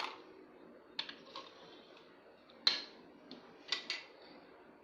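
Plastic toy food pieces being handled, giving a few light clicks and taps, about five in all, the loudest near the middle.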